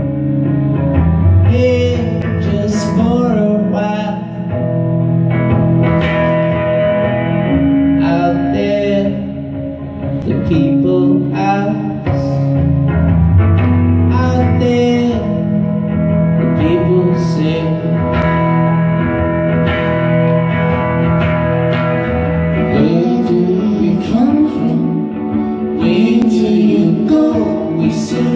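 Live duo music: acoustic-electric guitar played over long held chords, with sung vocals rising and falling over them.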